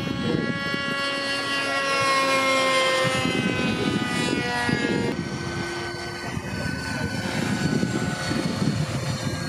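Radio-controlled model helicopter in flight: a high motor-and-rotor whine that slides slowly down in pitch, with an abrupt change about five seconds in. A rough low noise sits underneath.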